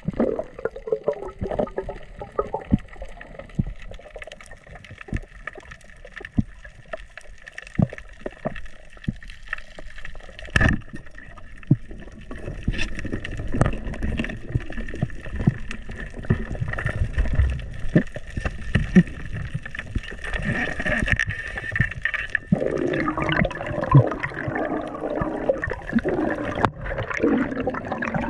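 Underwater sound picked up by the diver's camera: water movement with scattered sharp clicks and knocks and a faint steady hum. From about 22 seconds in, a louder stretch of bubbling and gurgling.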